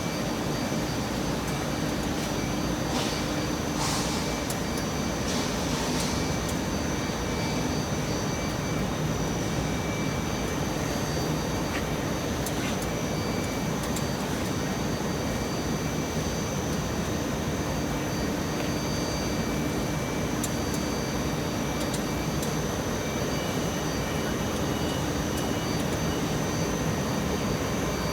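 Rubber extrusion and microwave vulcanization production line running: a steady machinery drone with fan-like rushing, a few constant high whines and the odd faint click.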